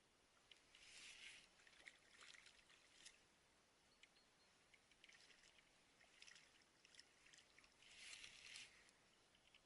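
Faint, brief rustling swishes with scattered small clicks, loudest about a second in and again near the end.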